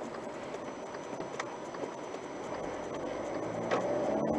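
Car driving, heard from inside the cabin: steady engine and tyre noise, getting a little louder near the end as the car pulls away and picks up speed.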